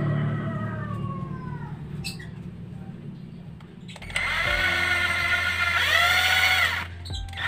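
Cordless drill boring a hole through the centre of a small airgun charging valve. The motor whine winds down over the first second or so. About four seconds in it starts up again, runs steadily for about three seconds with a brief dip in pitch, stops, and starts once more at the end.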